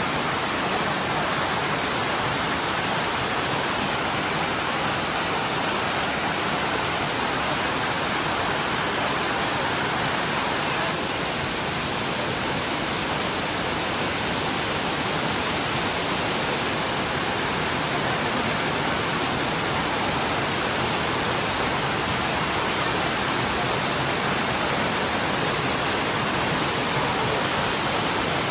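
Waterfall: water falling and splashing in a steady roar. Its tone shifts slightly about eleven seconds in.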